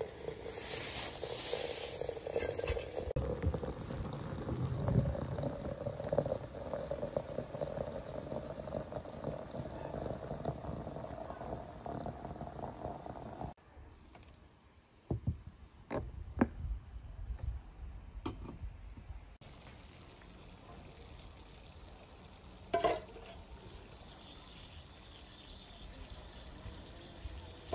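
Hot water running from a samovar's tap into a glass teapot of loose black tea, the pitch of the stream rising steadily as the pot fills. It stops about thirteen seconds in, and a few knocks follow.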